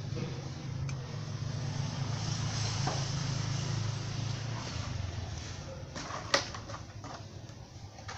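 A steady low motor hum that fades out about four and a half seconds in, with one sharp click a little later.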